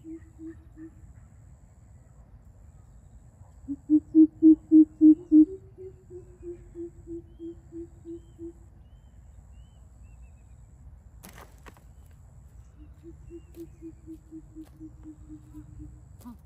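Greater coucals calling: runs of deep, hollow hoots, about three a second. The loudest is a burst of about six notes some four seconds in, followed by fainter runs of hoots. A single sharp click comes about eleven seconds in.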